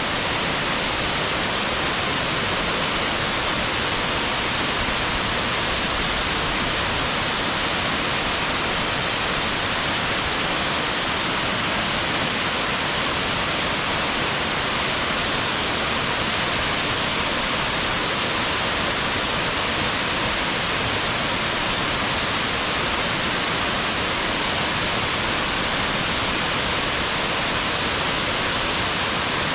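A waterfall making a steady, unbroken rush of falling water.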